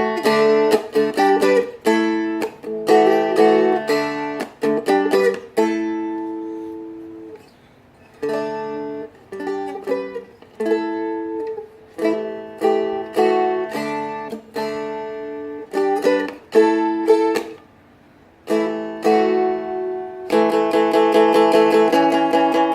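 Seagull Merlin M4, a four-string steel-strung dulcimer-style instrument, played with plucked and strummed chords under a melody. The chords ring out, die away briefly twice, then give way to fast steady strumming near the end.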